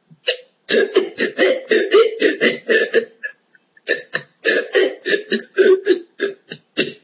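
A person making a rapid string of short, breathy sounds from the throat, about five a second, in two long runs with a short pause between, while trying to force a burp that won't come.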